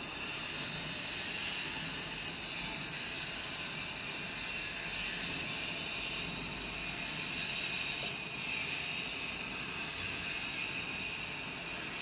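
Dental milling unit running its burs: a steady high-pitched whine with hiss, with a brief change in tone about eight seconds in.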